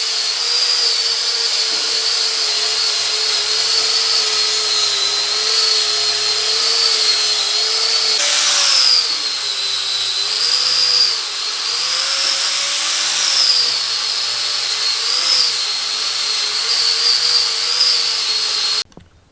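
Power tool with a wire wheel running continuously on the forged iron gate, stripping rust. Its pitch sags and recovers as it is pressed into the metal, and it shuts off abruptly near the end.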